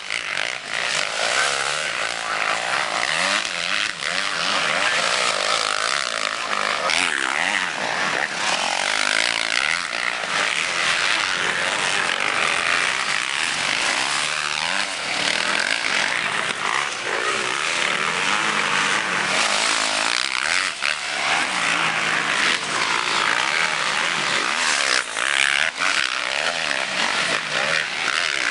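Motocross bikes racing on a dirt track, their engines rising and falling in pitch as the riders open and close the throttle.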